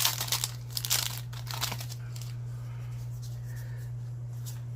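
Foil booster-pack wrapper crinkling and tearing for the first second and a half or so, then a few light clicks of cards being handled, over a steady low electrical hum.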